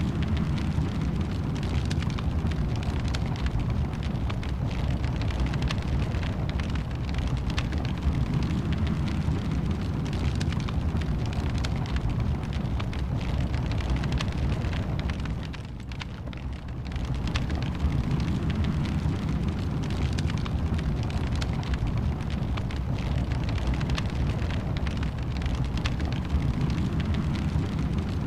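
Wood fire burning in a fireplace: a steady low rumble of flames with frequent crackles and pops. The rumble briefly drops in level a little past the middle, then comes back.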